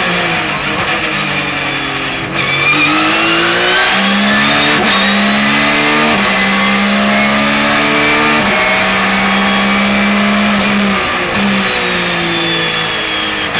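Onboard sound of a Porsche 911 GT3 R's 4.0-litre flat-six racing engine at full song. Revs fall briefly, then climb hard from about two seconds in, stepping through several upshifts. Pitch holds fairly level, then drops away again near the end as the car slows and downshifts.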